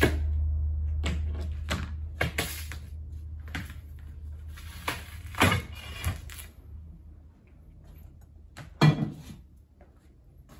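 Glass being handled on a cutting table after scoring: a series of light clacks and knocks, with a sharp crack about five seconds in as the scored sheet is snapped along the cut line. A single loud knock follows near the end as the cut-off strip is set down.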